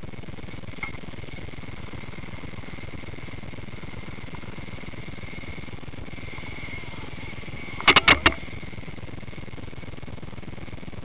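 Heliguy Viper electric RC helicopter's motor and rotor whining steadily. About eight seconds in there is a quick run of four sharp clicks, the loudest sound here.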